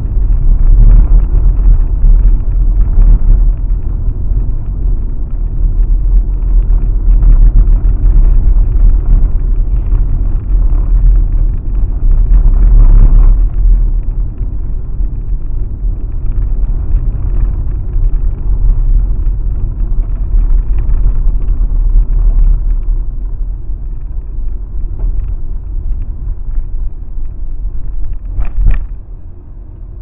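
Car driving on a gravel road: a loud, steady low rumble of tyres and engine. Near the end there is a sharp knock, after which the rumble drops much quieter.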